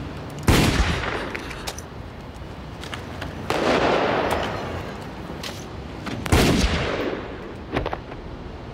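Handgun shots on a street, each trailing off in echo: a sharp crack about half a second in and another just past six seconds, with a broader loud surge of noise around three and a half seconds and a smaller crack near the end.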